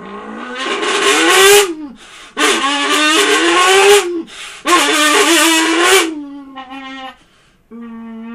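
A raspy human voice buzzing through a crushed can, the can's two flattened sides vibrating to imitate a Lamborghini engine revving. There are three loud revs, each rising in pitch for about a second and a half, followed by quieter, steadier hums.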